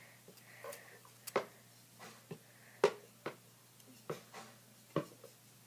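Irregular light clicks and knocks of a plastic spatula tapping and scraping against a bowl as clear glue is stirred.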